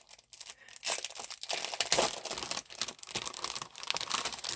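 Paper and wrapping crinkling and rustling by hand as a package of papers is unwrapped and handled, in dense, irregular crackles that are loudest about one and two seconds in.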